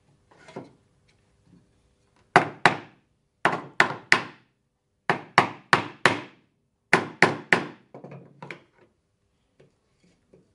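Hammer striking a small wooden shelf assembly, knocking its mortise-and-tenon joints home: about a dozen sharp knocks in quick groups of two to four, then a few lighter taps near the end.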